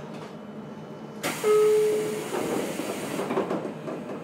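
JR Kyushu 811 series electric train's pneumatic doors closing: a sudden loud hiss of compressed air about a second in, with a short steady tone, fading away over about two seconds over low rumbling.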